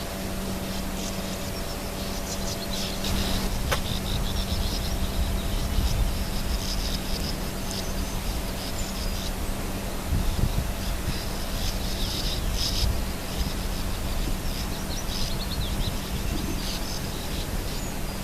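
Common swifts calling in short, high-pitched bursts, over a steady low hum and rumble.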